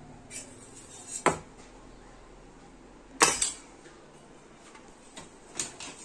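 Aluminium idli-stand plates clanking against the steamer pot and a steel plate as they are lifted out and set down: a handful of separate metal knocks, the loudest pair about three seconds in.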